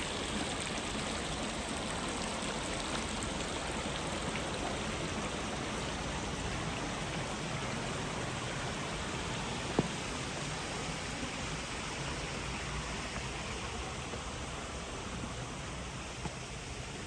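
A small stream running in a steady rush of water that slowly fades near the end. A single sharp click about ten seconds in.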